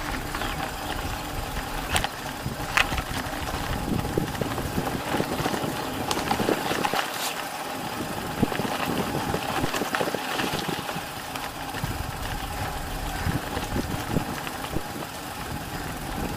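A vehicle engine running steadily on the move, with road and wind noise and a few sharp knocks and rattles.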